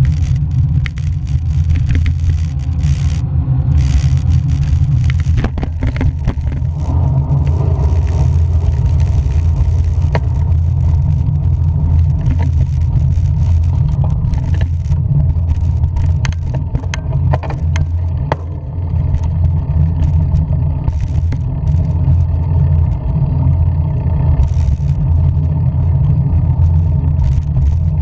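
A steady, loud low rumble that wavers in strength, with scattered faint clicks and rustles above it.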